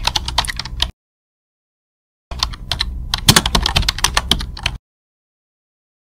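Computer keyboard typing: rapid key clicks in two bursts, a short one ending about a second in and a longer one from about two to nearly five seconds in, with dead silence between and after.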